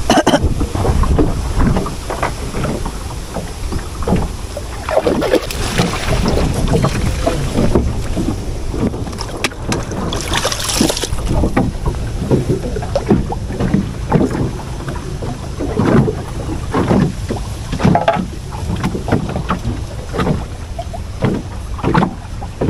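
Water hyacinth leaves and stems rustling and swishing as hands push through them beside a small wooden boat, with water sloshing against the hull and wind rumbling on the microphone. The rustles and knocks come irregularly, with a brief hissing swish about ten seconds in.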